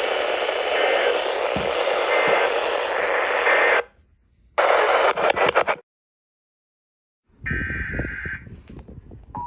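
Radio receiver static with poor reception: a steady hiss that cuts out briefly about four seconds in and comes back. Then the sound drops to dead silence for about a second and a half, and a short crackly burst of static follows.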